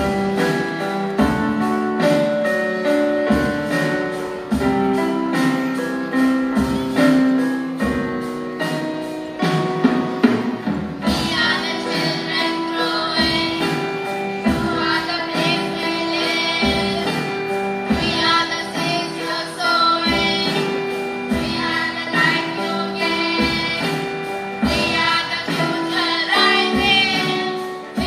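Children's choir singing with acoustic guitar accompaniment. The first ten seconds or so are instrumental, with a steady beat, and the voices come in about eleven seconds in.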